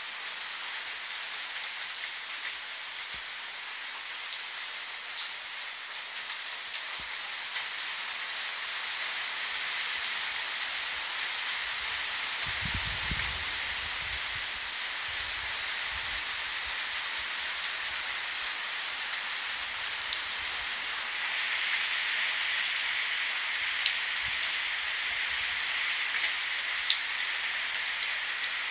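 Steady rain falling on a yard, a continuous hiss with sharp ticks of single drops hitting nearby surfaces. It grows a little louder about two-thirds of the way through.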